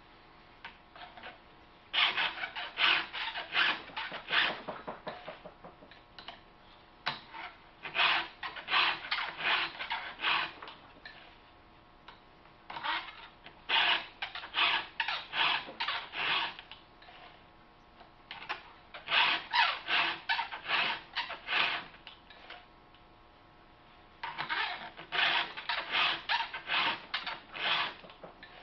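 A file rasping across the cutter teeth of a Husqvarna chainsaw chain held in a bar-mounted sharpening jig. The strokes come in five quick bunches of about two to three a second, with short pauses between the bunches.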